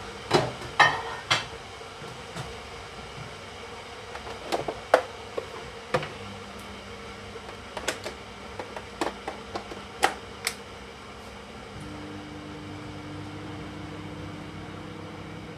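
A run of sharp clicks and knocks, then a microwave oven switching on and running with a steady hum from about twelve seconds in, heating leftover rice.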